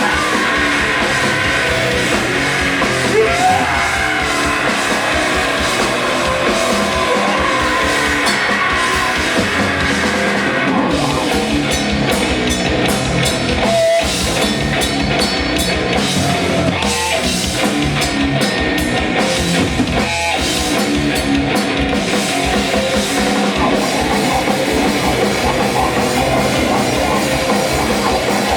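Rock band playing loud live music with guitars and a drum kit, continuous and dense; the arrangement changes about eleven seconds in.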